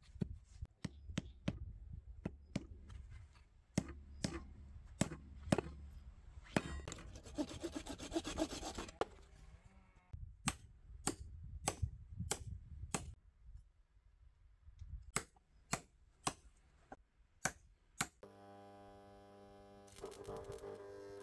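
Hammer blows on steel rod as it is bent into a ring: sharp knocks in spurts, with a few seconds of rasping scraping in the middle. Near the end a steady hum with several even tones comes in.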